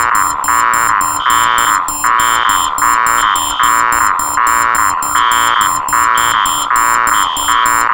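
Four electronic alarms layered into one harsh noise. Loud pulsing tones repeat about twice a second, a higher tone sounds on and off over them, and rapid high-pitched beeps run on top.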